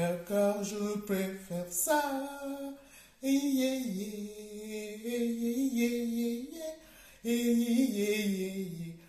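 A woman singing a slow melody with no accompaniment, in three phrases of long held notes with short breaks for breath.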